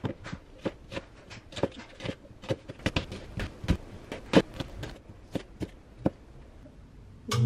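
Kitchen knife slicing an onion on a thin plastic cutting board: irregular sharp taps of the blade on the board, a few a second, stopping about six seconds in. Right at the end, a range hood fan switches on with a loud steady hum.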